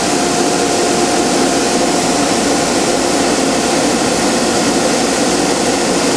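Atlas Copco GA11 15 hp rotary screw air compressor running with its sound-dampening enclosure panels on: a steady hum over an even hiss.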